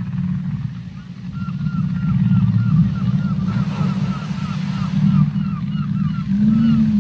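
Whale vocalizations in the ocean: a low, steady moan-like rumble with a rapid run of short, high chirps repeating about three to four times a second, starting about a second and a half in.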